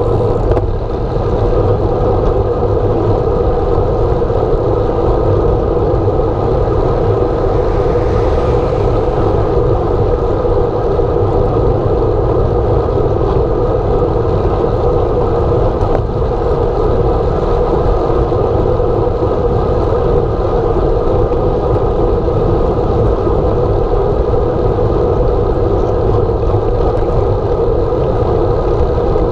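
Steady wind and road noise on a handlebar-mounted camera on a moving bicycle: a loud low rumble with a constant droning band through it. A brief swell of hiss comes about eight seconds in.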